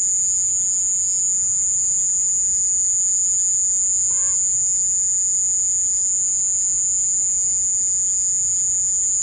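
Steady, high-pitched chorus of night crickets shrilling without a break. A single short pitched sound comes about four seconds in.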